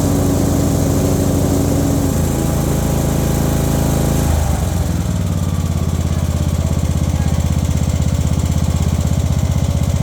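Riding lawnmower engine running steadily, then throttled down about four seconds in to a lower, slower speed with an even pulsing beat.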